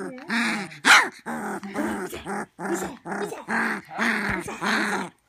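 Rottweiler puppy play-growling at a hand: a run of short, high growls, about two a second, with one sharp yip about a second in.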